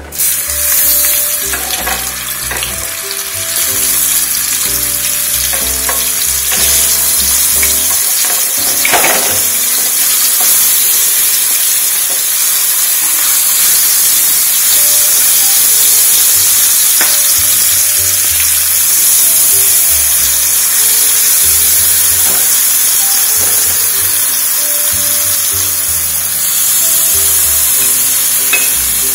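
Masala-coated raw banana slices shallow-frying in hot oil on a flat iron tava: a loud, steady sizzle that starts suddenly as the first slice goes in, with scattered light clicks of a spatula setting slices down.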